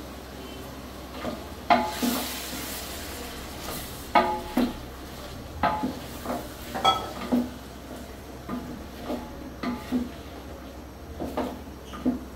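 Wooden spatula stirring meat in a large aluminium cooking pot, knocking and scraping against the metal sides about a dozen times at uneven intervals, each knock leaving the pot ringing briefly.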